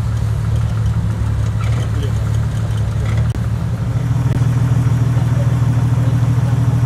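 Jeep engines running steadily at low revs on a rocky off-road trail. About four seconds in the sound switches to a Jeep Wrangler's 4.0-litre straight-six running close by, a little louder.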